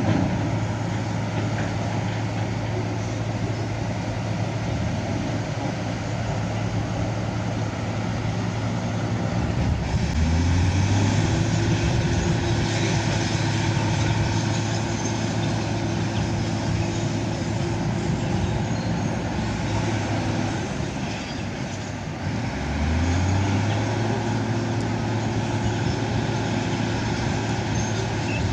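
Heavy diesel construction machinery running steadily. The engine revs up and then holds at the higher speed twice, about ten seconds in and again about twenty-three seconds in, as it takes on load.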